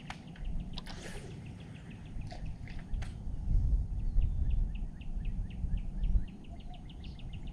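Low rumble of wind and water on the microphone, with a few sharp clicks near the start and a run of quick, small ticks at about six or seven a second.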